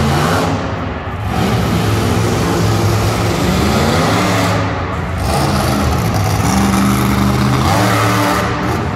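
Monster truck engine revving hard, with its pitch rising and falling as the throttle works. The engine eases off briefly about a second in and again about five seconds in, then pulls hard as the truck climbs onto the crushed cars near the end.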